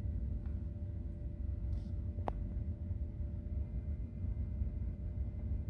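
Steady low hum and rumble of a BMW F30's climate-control blower running, heard inside the cabin, with a single sharp click about two seconds in.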